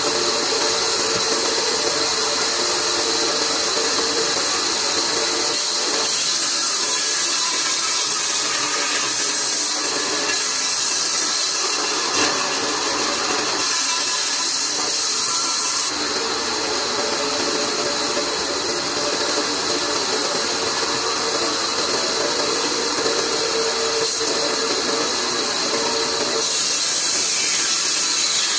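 Large vertical band saw running and cutting through a log, a steady whine with a hiss of sawing. The sound of the cut changes several times as the log is pushed through and drawn back.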